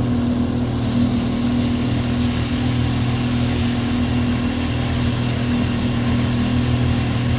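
Small fishing boat's engine running steadily under way at a constant speed, with water rushing in the wake.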